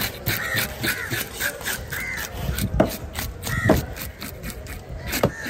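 A blade scaling a green jobfish: quick repeated scraping strokes against the scales, several a second, with a few heavier scrapes in the second half.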